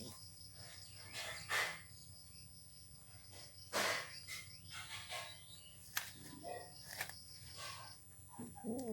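Crickets chirping steadily, with several short, loud noises at irregular intervals that fit a cat crunching on a sparrow it is eating. A brief wavering, voice-like sound comes near the end.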